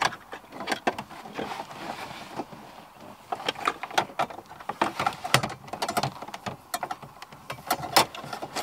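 Plastic knocks, clicks and scraping as an aftermarket double-DIN head unit is pushed and wiggled into the dashboard opening against the wiring bunched behind it. The knocks come thick and irregular, busiest in the second half.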